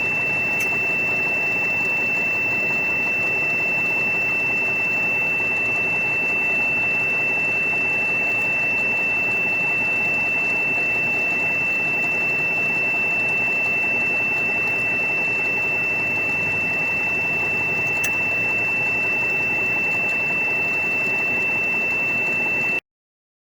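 A steady, high-pitched electronic whine over a constant hiss and hum, cutting off abruptly near the end.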